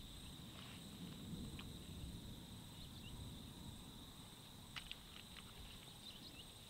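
Faint outdoor ambience: a steady high-pitched drone, a low rumble of wind, and a few faint chirps and ticks.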